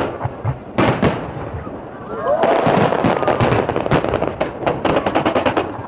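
Aerial fireworks shells bursting with sharp bangs, one right at the start and another about a second in. From about two and a half seconds a dense barrage follows: many rapid bangs and crackling that run on until near the end.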